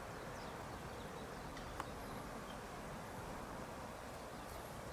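Quiet outdoor ambience: a steady background hiss with a few faint, high chirps early on and a single small click a little under two seconds in.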